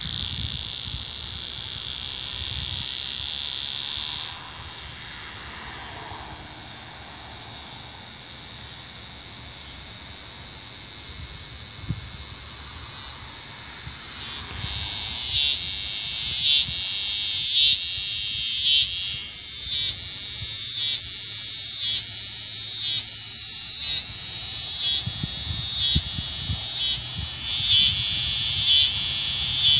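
Scissor grinder cicada (Neotibicen winnemanna) calling. A fainter, steady high buzz in the first few seconds gives way about halfway through to a loud, high buzz that pulses in an even rhythm, a little over one pulse a second.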